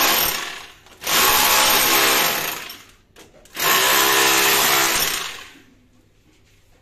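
SDS rotary hammer with a pointed bit chipping into a rendered brick wall, in three bursts. The first ends about half a second in, and two more last about a second and a half each, the last stopping about five and a half seconds in.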